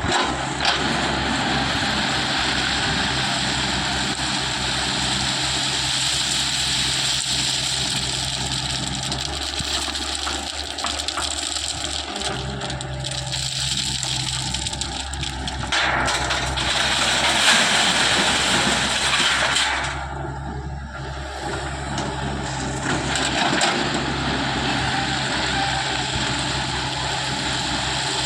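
JCB 3DX backhoe loader's diesel engine running steadily, with a louder, harsher stretch of a few seconds about two-thirds of the way through as it works under load.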